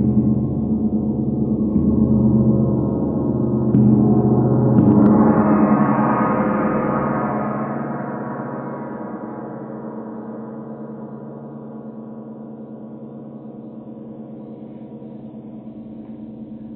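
Large flat therapeutic gong ringing with a deep steady hum, struck softly a few more times so that a bright shimmer swells up about five seconds in. It then rings on and slowly fades.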